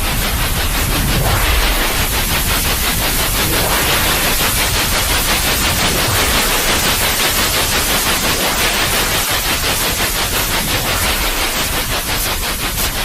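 Loud, steady white noise, a hiss spread across all pitches, with a fast, even flutter running through it.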